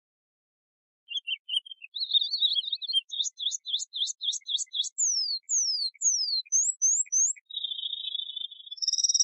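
Domestic canary singing, starting about a second in, in quick changing phrases: a chattering run, a series of rapid rising-and-falling notes at about four a second, several falling whistles, then a buzzy trill and a clearer trill near the end.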